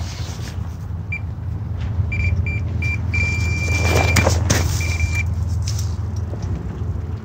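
Carp-rod electronic bite alarm sounding for a take, a fish running with the line. It gives a few separate beeps, then one unbroken tone for about a second, then a last short tone. A burst of noise from the rod being handled comes about four seconds in, over a steady low rumble.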